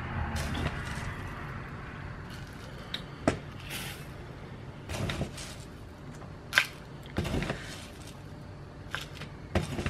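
Dry rolled oats being scooped from a cardboard canister and poured into a glass bowl, with rustling of the flakes and several sharp clicks and taps of a plastic measuring cup and a metal spoon against the bowl and canister. The loudest click comes about two thirds of the way in.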